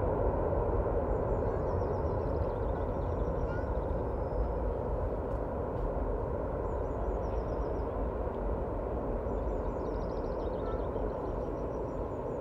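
Distant jet engine rumble of a landed Airbus A380, a steady low noise slowly fading. Small birds chirp and trill over it several times.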